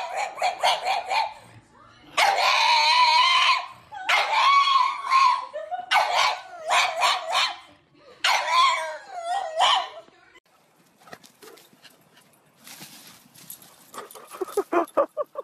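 Black pug howling: four long, wavering cries with short yips between them. Near the end comes a quick run of short barks from another dog.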